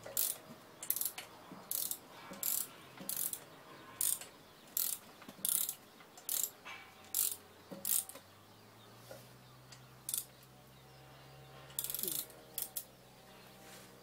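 Ratchet wrench clicking in short back-strokes, about one and a half a second, for the first eight seconds. After a pause comes a quick flurry of clicks near the end.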